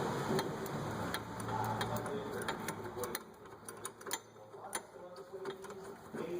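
Ratchet wrench clicking in a run of sharp ticks, about two or three a second, as a 14 mm brake caliper bolt is turned. A low background hum drops away about three seconds in.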